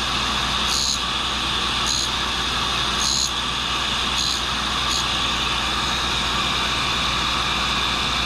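WW2-era tool and cutter grinder running steadily with a motor hum and whine, its coarse, low-concentration cup wheel giving a short grinding hiss about once a second as a carbide cutter is passed back and forth across its face. The hissing stops about five seconds in while the grinder runs on.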